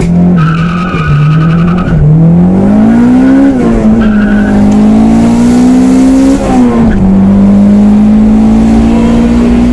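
Turbocharged B18B four-cylinder of a Honda Integra accelerating hard, heard from inside the cabin: the engine note climbs, drops sharply on a gear change about six and a half seconds in, then climbs again. A high squeal sounds for about a second and a half near the start.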